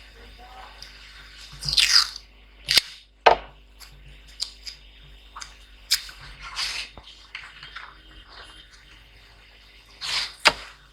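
Irregular clicks, knocks and short scrapes of laptop parts and small tools being handled on a repair bench. The loudest are two sharp knocks about three seconds in and another near the end.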